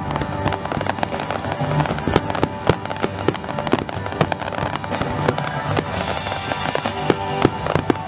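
Fireworks display: a dense run of aerial shells and low-fired comets and mines bursting, making many sharp bangs and crackles in quick, irregular succession. The show's music plays underneath.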